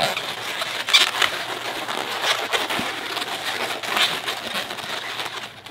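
Inflated latex 260 modelling balloons squeaking and rubbing against each other and against the hands as two balloon seams are twisted together to lock two triangles.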